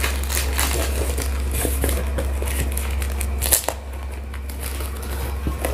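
Clear plastic packing tape being peeled and torn off a cardboard box by hand, a run of irregular small clicks and rustles.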